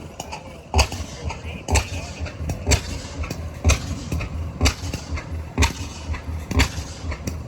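Slow, regular beats of an antique engine running at a show, about one sharp pop a second over a low rumble.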